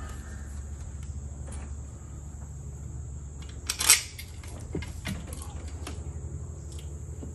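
Metal clinks and knocks from outboard lower-unit parts and tools being handled during reassembly, with one sharp, loud knock about four seconds in and a few lighter clicks around it.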